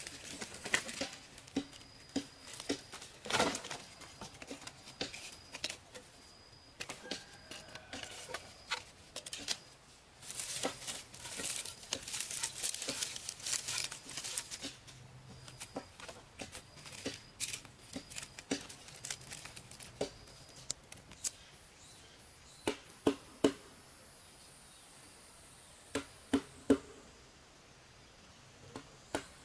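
Irregular taps and knocks, with a few seconds of crinkly rustling about ten seconds in and a handful of louder sharp knocks near the end.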